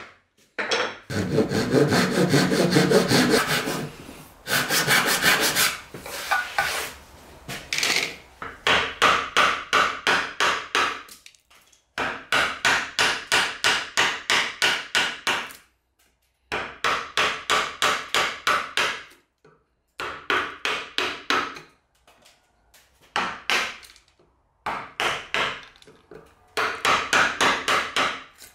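Wooden mallet driving a bench chisel into hardwood in quick runs of blows, about three to four a second, with short pauses between runs, chopping out wood.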